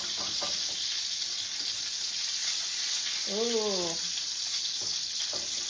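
Chicken cutlets frying in hot oil in a pan, a steady sizzle. About three seconds in, a short voice sound rises and falls in pitch for under a second.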